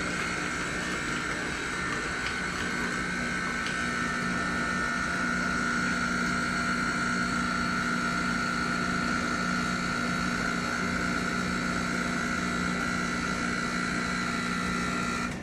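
Jura Z10 super-automatic espresso machine running with a steady hum and whine, which stops abruptly near the end.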